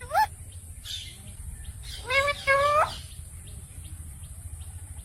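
Green ringneck parakeets calling: a single rising call just after the start, then a pair of short calls about two seconds in, over a low steady hum.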